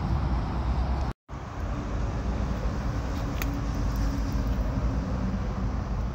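Steady outdoor vehicle and traffic noise with a heavy low rumble and a faint steady hum, broken by a brief drop-out about a second in.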